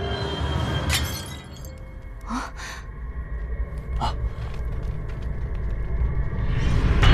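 Tense film score with a low rumble that builds and swells toward the end, a sharp crash of something shattering about a second in, and short startled cries a couple of times after it.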